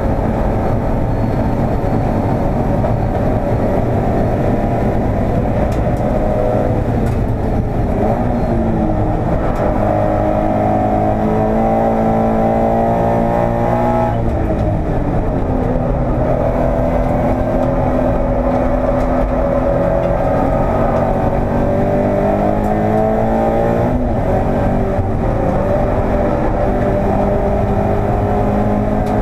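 Toyota 86 race car's 2.0-litre flat-four boxer engine under hard acceleration, heard from inside the cabin: the engine note climbs steadily for long stretches, then drops sharply about a quarter of the way in, about halfway through and again near the end. Steady road and wind noise runs underneath.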